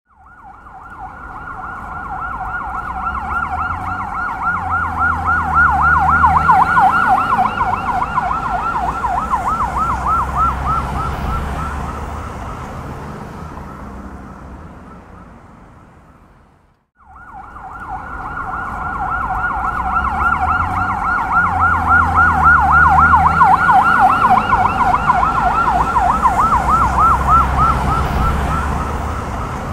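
Police car siren in a rapid up-and-down yelp with engine and traffic rumble beneath, passing very close: it swells to a peak and fades away. It cuts off suddenly about 17 seconds in, and the same pass begins again.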